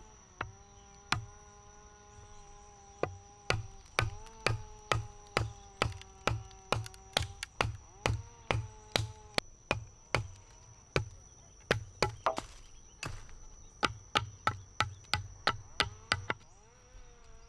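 Machete blade chopping into the end of a wooden stake: a long run of sharp strikes, roughly two a second, with short pauses. An insect buzzes close by in between.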